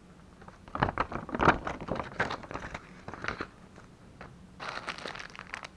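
Clear plastic packaging bags crinkling and crackling as boxed accessories are handled: irregular crackles for the first few seconds, a brief lull, then a denser, steadier crinkling near the end.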